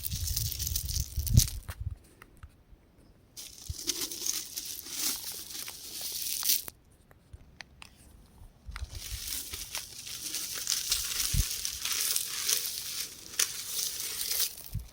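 Rock crumbling and crunching: a grainy crackle with scattered sharp clicks, in three stretches that stop about two seconds in and again around seven seconds in.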